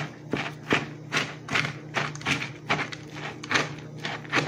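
Metal spoon stirring a stiff mix of rice, oats and raw eggs in a stainless steel bowl: a steady run of scrapes and knocks against the bowl, roughly two or three strokes a second.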